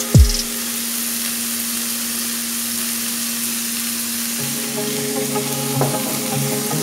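Sliced celery and carrot sizzling steadily as they fry in oil in a wok.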